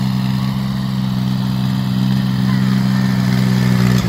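Compact diesel tractor engine running at a steady speed while the tractor tows a line of sleds through snow.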